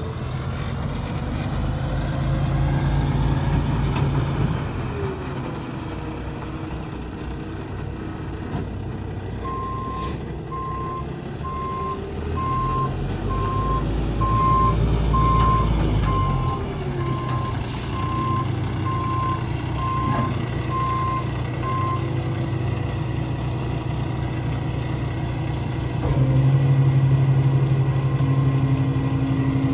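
Diesel engine of a Peterbilt 567 tri-axle dump truck running and revving as it manoeuvres, with a reversing alarm beeping about once a second for some twelve seconds in the middle. Near the end the engine speeds up and a steady whine joins it as the hydraulic hoist starts raising the dump bed.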